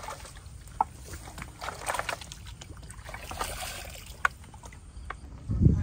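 Hands splashing and sloshing in shallow water, with irregular sharp splashes. A heavy low thump near the end.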